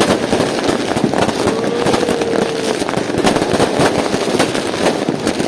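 Fireworks going off in a dense, continuous barrage of sharp bangs and crackles. A brief steady tone sounds about a second and a half in.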